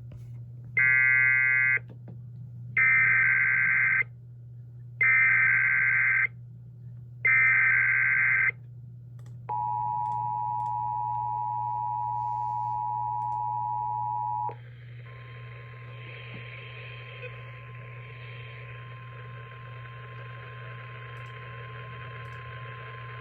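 NOAA Weather Radio weekly test tones received on a weather radio. First come four short buzzing SAME digital header bursts, about a second each with gaps between them. Then a loud two-note alert tone runs for about five seconds, followed by a fainter single steady tone over static.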